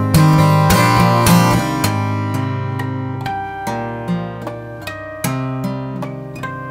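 Steel-string acoustic guitar played solo fingerstyle: a loud chord just after the start rings and fades, then notes are tapped on the fretboard with both hands, with a fresh attack about five seconds in.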